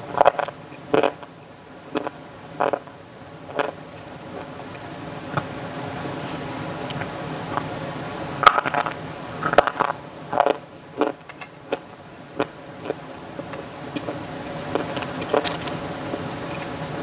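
Dry clay crunching and crackling in sharp bursts, a cluster in the first few seconds and another about halfway through, with smaller crunches between. A steady hum runs underneath.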